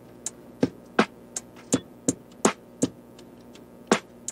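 Background music: an electronic beat of sharp percussive hits, about three a second, pausing briefly about three seconds in before a strong hit near the end.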